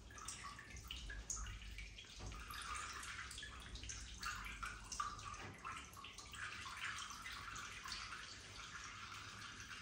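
Water splashing and dripping into a bathtub: a steady patter of small irregular splashes.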